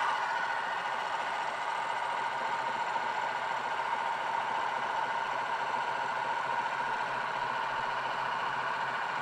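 Small electric motor of a Rollie Pollie 3D-printed magnetic black-sand separator running at a steady speed, spinning its magnet under a plastic gold pan: a constant whining hum.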